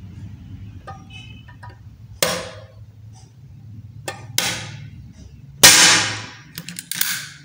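Manual 3-in-1 hand staple gun being squeezed and fired against a softwood strip: several sharp metallic clacks, the loudest a little after halfway. Its pressure knob is set low, so the staple is not driven fully into the wood.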